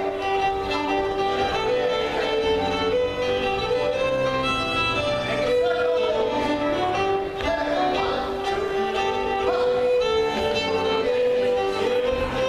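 Live fiddle playing a lively contra dance tune, with keyboard accompaniment underneath.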